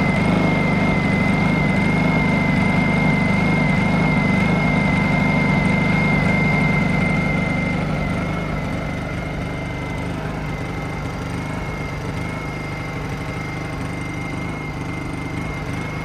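Honda EU2000i inverter generator running at idle: a steady engine hum with a thin, steady high whine over it. It grows quieter about eight seconds in as the listening point moves farther from the generator.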